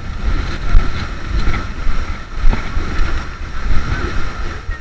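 Wind buffeting the action camera's microphone: a loud, uneven low rumble that comes and goes in gusts, with a faint steady whine underneath.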